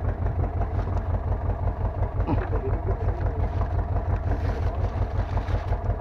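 Fishing boat's engine running steadily with a deep, even throb.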